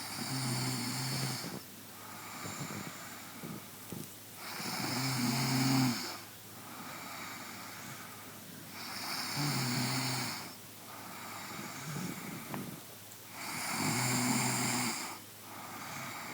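A person snoring: four long snores, each about a second and a half, coming roughly every four and a half seconds, with quieter breathing between them.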